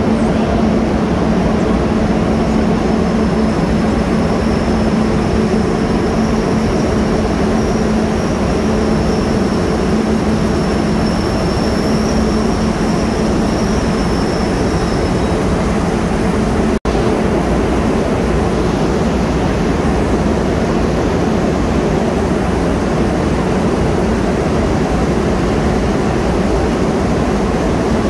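Train running past on the railway: a steady, loud rumble with a low hum and, for several seconds in the middle, a faint high whine. The sound drops out for an instant about two-thirds of the way through, then the rumble carries on.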